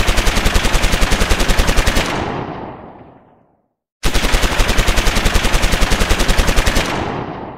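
Machine-gun fire sound effect: a rapid burst of about ten shots a second that stops about two seconds in and dies away in a fading tail, then the same burst repeated from about four seconds in, fading out near the end.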